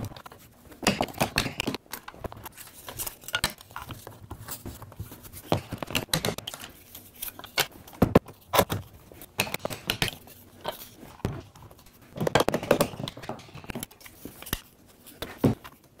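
Irregular light clicks, knocks and clinks of thin wooden shims and metal bar clamps being handled and set on a plywood clamping setup, with a denser clatter about twelve seconds in.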